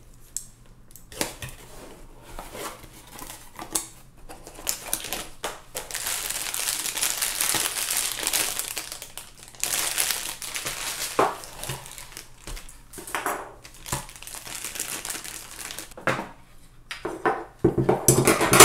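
Plastic packaging bag crinkling and rustling as a steel monitor pole-mount bracket is unwrapped from its box, with scattered clicks of cardboard and parts being handled. Near the end the loose metal bracket pieces clack against each other.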